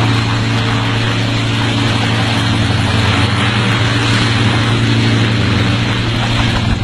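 The engine and rotor of a small homemade single-seat helicopter, running at high power at a steady pitch.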